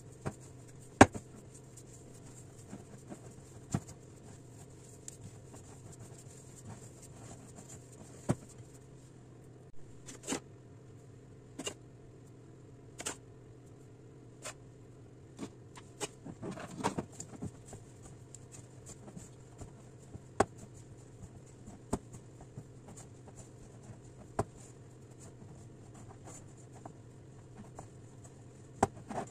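Hands kneading crumbly dough in a glass mixing bowl, with scattered sharp clicks and knocks against the glass and a busier run of taps about halfway through, over a faint steady hum.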